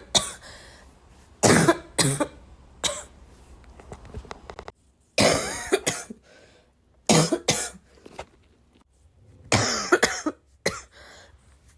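A person coughing from illness, in repeated fits of harsh coughs every second or two, some coming in pairs, with one longer, rougher cough about five seconds in.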